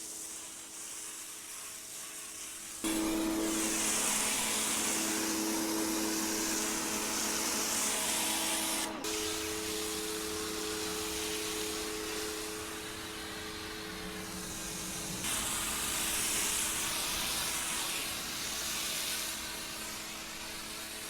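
AIVOLT electric pressure washer running and spraying water: its motor and pump hum under a steady hiss of spray, switching on abruptly about three seconds in, with a short break and change in pitch about nine seconds in.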